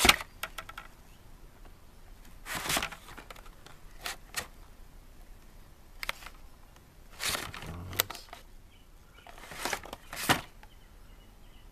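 Hot Wheels cars in cardboard-backed plastic blister packs being flipped through by hand, giving a series of short crinkling rustles and clicks as the packages knock against each other, roughly every second or two.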